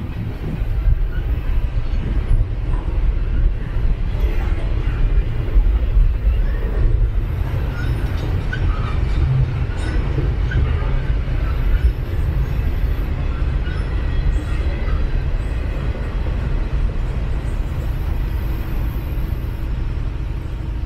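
Double-stack intermodal container freight train rolling past at trackside: a steady rumble and clatter of the railcars' wheels on the rails, easing a little near the end as the cars move away.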